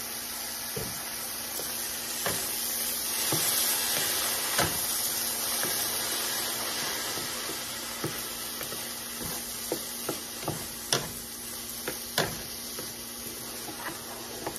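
Riced cauliflower and mixed vegetables sizzling in a large skillet while a wooden spoon stirs them, with irregular scrapes and taps of the spoon against the pan, coming more often in the second half.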